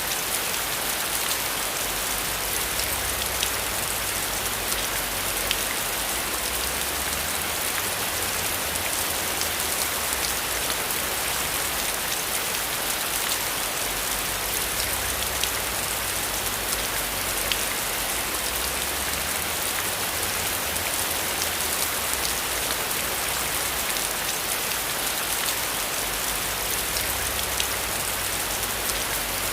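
Steady rain falling: an even hiss with scattered small drop ticks, and a faint low rumble that swells and fades underneath.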